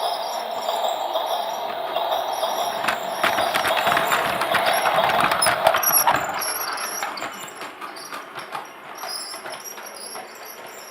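Battery-powered toy train running on its track: a steady small-motor whine with fast clicking from the wheels and track. The whine fades after about six seconds, leaving quieter ticking.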